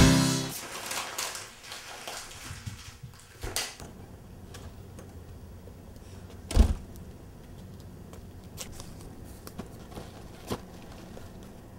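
The last chord of a music cue dies away at the start, then faint room tone with a few scattered knocks. The loudest is a single thump about six and a half seconds in.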